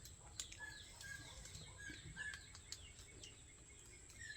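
Faint birds chirping in short calls, over a steady high whine, with a few faint clicks.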